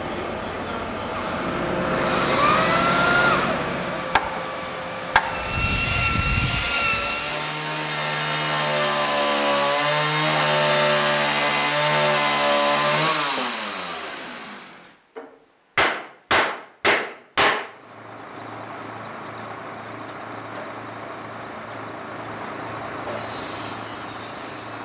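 Two-stroke chainsaw running and cutting through a timber beam, its engine note sinking as it is let off; then four sharp knocks about half a second apart, followed by a steady low hum.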